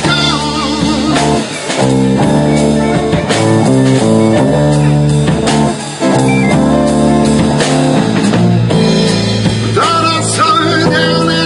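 Live band playing a blues-rock number: electric guitars, bass and drums, with a voice singing near the end.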